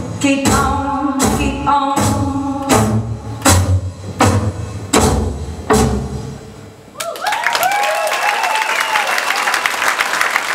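Stage music with a heavy, steady beat about every three-quarters of a second and singing. The song ends about six seconds in, and a second later the audience breaks into applause and cheering.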